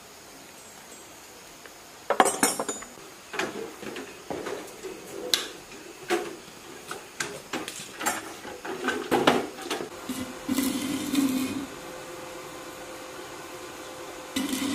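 Metal tools and engine parts of a small single-cylinder diesel engine clinking and knocking as they are handled and worked on, a string of sharp clinks beginning about two seconds in. A steady hum takes over about two-thirds of the way through.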